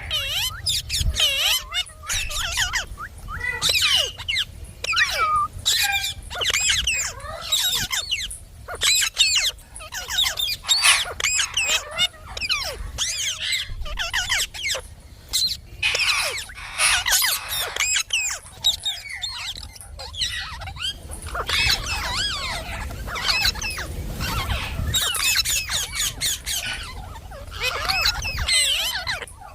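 Indian ringneck parrot calling and chattering: runs of short, high squawks and whistly notes that rise and fall quickly, with brief pauses between runs.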